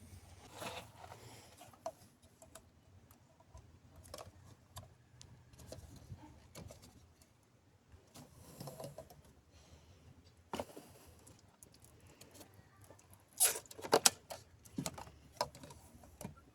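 Scattered small clicks, knocks and rustles of hand work on a car's power steering reservoir, with a cluster of louder sharp clicks about thirteen to fourteen seconds in.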